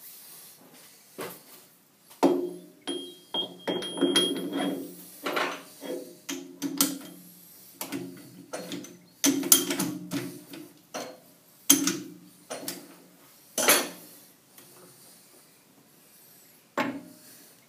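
Irregular metallic clanks and knocks, each ringing briefly, as the jaws of a lathe's four-jaw chuck are adjusted around a workpiece.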